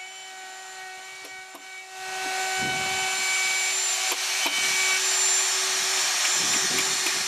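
A handheld power tool cutting notches into a new pressure-treated timber sill. Its motor runs with a steady whine, then about two seconds in it bites into the wood and cuts steadily, louder.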